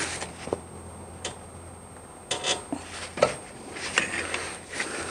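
Metal pry bar scraping and clicking against a 2004 Toyota Tacoma's front brake caliper as it is levered to push the caliper piston back. A handful of separate short clicks and scrapes with quiet gaps between them.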